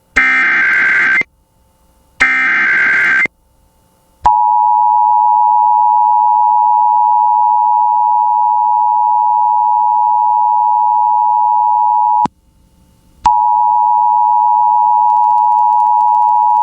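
Emergency Alert System broadcast signals. Two one-second bursts of the digital SAME header come first, a harsh warbling screech. Then the EAS two-tone attention signal starts, a steady harsh two-note tone held about eight seconds, breaking off for a second and starting again.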